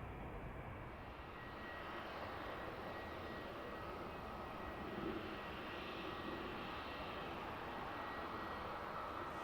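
Airliner jet engines heard at a distance: a steady rumble with a thin, high whine held over it.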